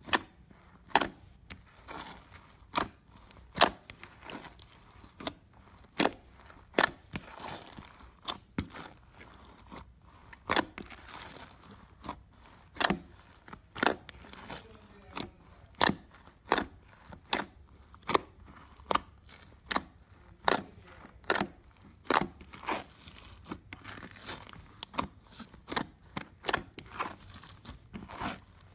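Fluffy slime mixed with foam beads being pressed and squeezed by hand: a steady run of sharp crunchy pops and crackles, about one or two a second.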